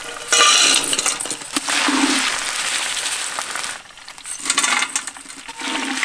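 A steel perforated ladle clinks and scrapes against a steel bowl and frying pan, and crisp fried jackfruit chips rattle on the metal as they are scooped out of hot oil, with the oil sizzling. The noise starts suddenly just after the start, drops briefly about two-thirds of the way through, then comes back. The chips are fried crisp and done.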